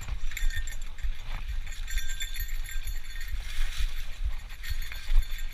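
Bicycle rolling along a trail, heard through a mounted action camera: irregular low thumps from wind and bumps on the microphone, with light rattling and faint high chirps.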